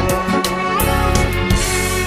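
Background music: a song with drum hits, a steady bass line and a held melody.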